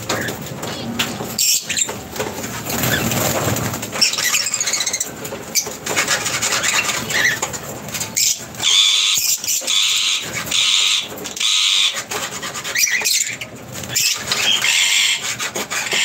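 Small parrots (lovebirds) flapping their wings as they fly in and land on a perch. About halfway through comes a run of shrill, repeated squealing calls, with scattered chirps after.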